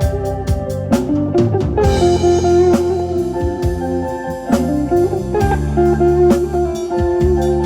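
Instrumental band music: melodic guitar lines over bass and a drum kit playing a steady beat.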